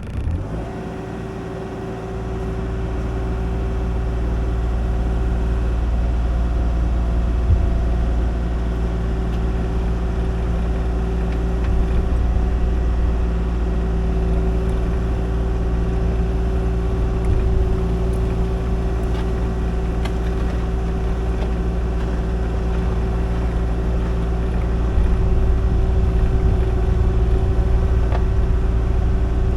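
Kubota KX040 mini excavator's diesel engine running steadily, its low rumble getting louder about two seconds in and holding there as the machine works.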